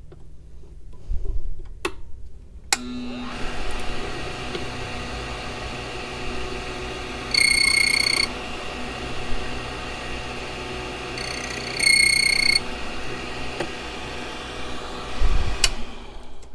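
A key-cutting code machine switches on with a click, runs steadily, and cuts a brass key blank twice: two high-pitched squeals a few seconds apart as the cutter bites spaces 3 and 4. It then switches off with a click.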